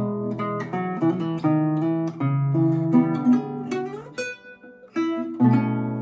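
Solo classical guitar, an 1852 Augustin Altamira Codina, played fingerstyle in a quick run of plucked notes. A little before the middle a note slides upward, a few sparse high notes follow, and about five and a half seconds in a full chord is struck and left to ring.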